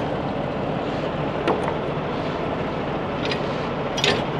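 A steady engine rumble, like a truck's idling diesel, with a light click about a second and a half in and a few sharp metallic clicks near the end.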